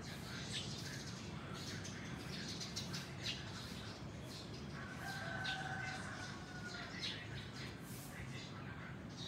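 A rooster crows once, a single long call of about two and a half seconds starting around the middle, over light clicks and rustles of vinyl records and paper sleeves being handled.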